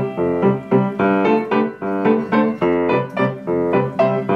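Upright piano playing a steady rhythm of repeated chords, about three a second.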